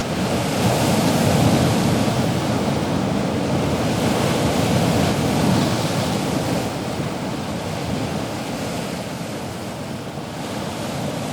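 Sea waves washing, with wind buffeting the microphone: a steady rush of noise that swells in the first seconds and eases off near the end.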